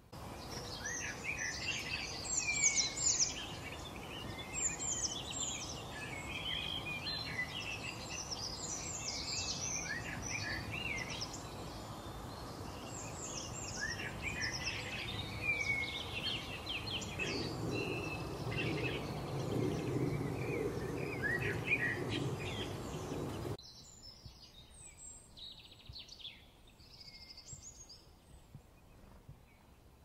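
Many small songbirds chirping and singing at once, their calls overlapping thickly over a steady background hiss. About 23 seconds in the sound drops abruptly to fainter, scattered chirps.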